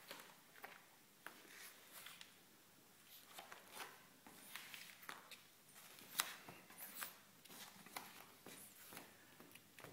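Faint, irregular wet clicks and smacks of a cat licking and suckling at a dog's belly, the sharpest click about six seconds in.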